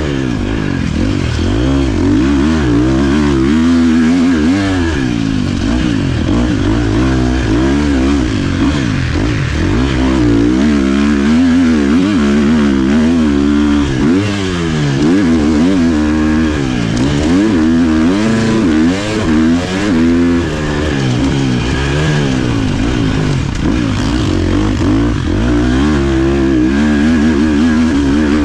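Husqvarna FC 350 four-stroke single-cylinder motocross engine revving up and falling back over and over as the rider accelerates, shifts and rolls off, heard from a helmet-mounted camera.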